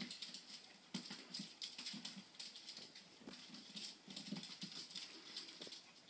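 Several puppies wrestling on a hard floor, their claws clicking and scrabbling in quick, irregular patters.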